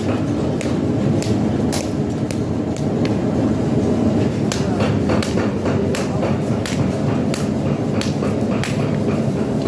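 Metal being struck with a hammer: about a dozen sharp, irregular blows, one or two a second, over a steady workshop machinery din.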